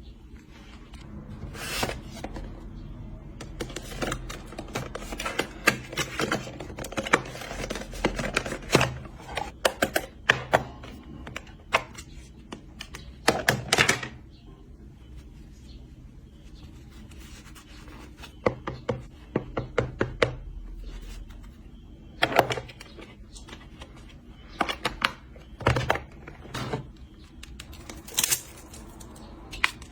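Hands handling and opening product packaging: irregular clicks, taps and brief rustling, in clusters with short pauses between.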